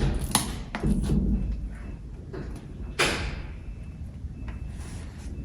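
Cardboard shoe box being handled and opened: a few knocks and scrapes in the first second, then a louder thud about three seconds in.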